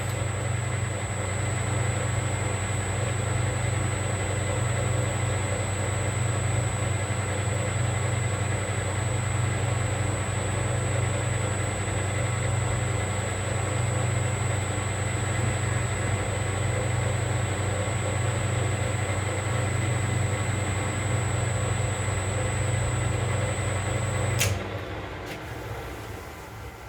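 Metal lathe running steadily while a burr is chamfered off a small machined bushing, with a steady low hum and a thin high whine. About two seconds before the end a click, and the lathe winds down and stops.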